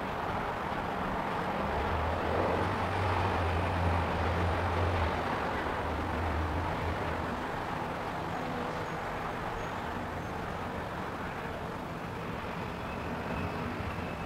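Steady outdoor background noise with a low engine rumble that swells about two seconds in and fades by about seven seconds.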